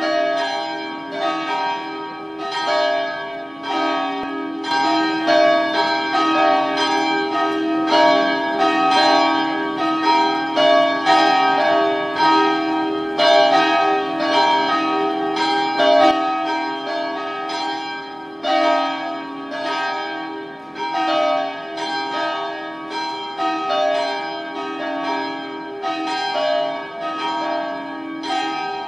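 Church bells pealing: several bells swinging together, their strikes overlapping about once or twice a second over a lingering hum.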